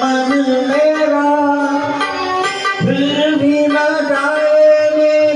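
A man singing a Hindi film song into a handheld microphone over a recorded instrumental backing track, holding long notes.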